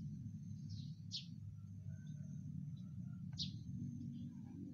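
A small bird chirping in short, sharp, high calls that drop in pitch, a couple about a second in and another a little past the middle, over a steady low hum.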